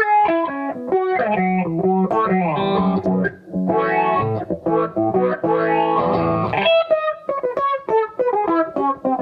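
Electric guitar played through a Source Audio Soundblox 2 Stingray Multi Filter effects pedal. Quick picked single notes give way to held chords about two seconds in, and quick notes return near the end.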